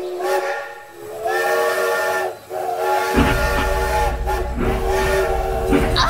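Train whistle sounding a chord in a series of long blasts, with a low rumble of a running train coming in about three seconds in.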